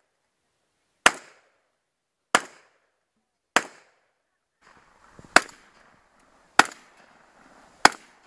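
Six shotgun shots fired at an even pace, a little over a second apart, each a sharp report with a short decay.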